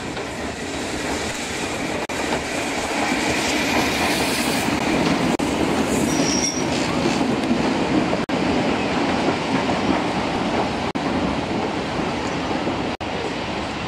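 Steam locomotive and its coaches rolling slowly into a station: a steady rumble of wheels on rails with a hiss, growing louder over the first half as the train approaches. A brief high squeak about six seconds in.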